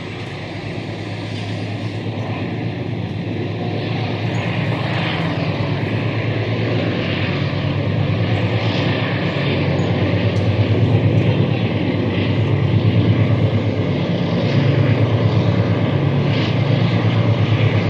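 Lead locomotives of a freight train: a group of diesel-electric locomotives working under power, their deep engine drone growing steadily louder as the train approaches.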